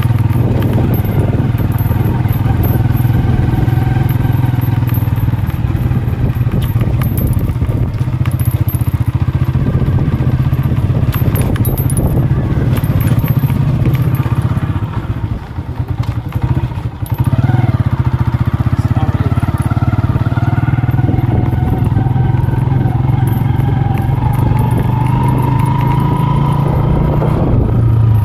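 Motorcycle engine running as the bike is ridden along a rough lane. It eases off briefly a little past halfway, then picks up again, its pitch climbing slowly toward the end.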